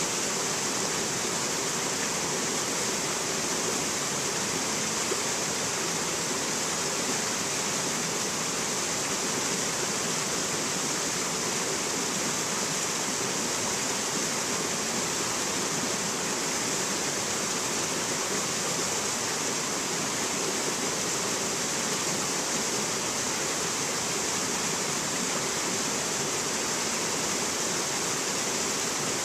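Shallow rocky stream rushing and cascading over boulders: a steady, unbroken wash of water with a strong high hiss.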